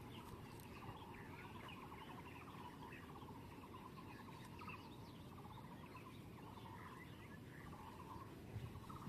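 Faint early-morning chorus of birds: repeated pulsing trills and scattered short chirps, over a steady low background rumble.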